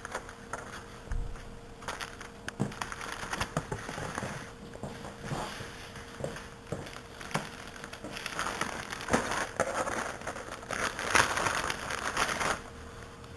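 Paper and plastic packaging rustling and crinkling as brochures and manuals are handled, with scattered small clicks and a denser stretch of rustling in the last few seconds.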